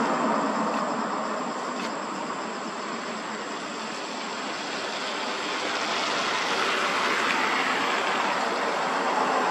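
Road traffic going by: a steady wash of engine and tyre noise that eases off midway and swells again as more vehicles approach.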